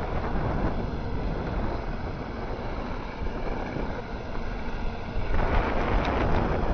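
Electric floor scrubber running, its motor humming and its brush scrubbing over a wet EPDM rubber roof membrane; the sound grows louder about five seconds in.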